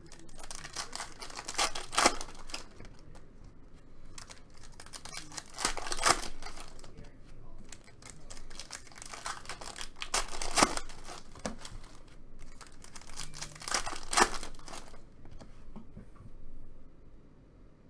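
Trading card pack wrappers crinkling and tearing and cards being flipped through by hand, a string of sharp rustles that fades near the end.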